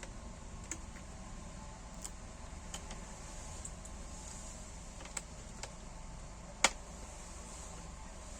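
Scattered sharp clicks of hands and tools working loose a laptop's screen bezel and panel, one much louder click about two-thirds of the way in, over a steady low hum.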